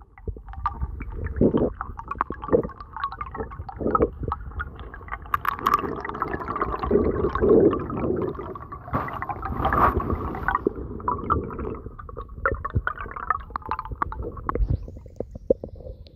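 Muffled underwater gurgling and bubbling, heard through a camera held under the water of a shallow weedy swamp, with many irregular knocks and clicks throughout. About fifteen seconds in the sound thins and drops as the camera comes up to the surface.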